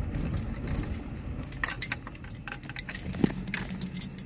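Small metal pieces jingling and clinking, like keys on a ring swinging, in short irregular clicks. Underneath is the low steady hum of the Jeep Grand Cherokee driving, heard from inside the cabin.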